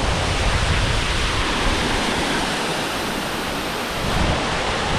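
Can-umantad Falls, a steady rush of falling water. A low, uneven rumble of wind on the microphone under it eases off in the middle.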